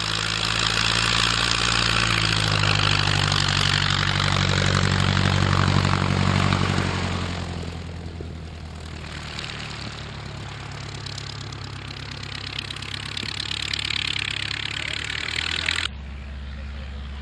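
De Havilland Chipmunk's four-cylinder Gipsy Major piston engine and propeller running close by as the aircraft taxis on grass. The engine is loud for several seconds, then grows quieter as the aircraft moves away. The sound changes abruptly near the end.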